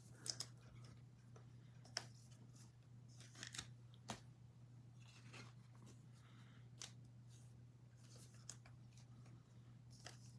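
Faint handling of trading cards: soft rustles of cards sliding against each other, with a few sharp taps and clicks, over a low steady hum.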